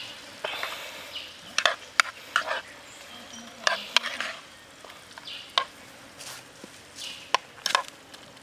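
Metal spoon stirring squid and vegetables in a metal pan: irregular sharp clicks and scrapes of the spoon against the pan, over the food sizzling.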